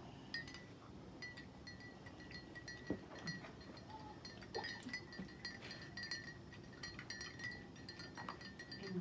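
Metal teaspoon stirring tea in a small glass, a run of quick, irregular high clinks with a light ringing tone.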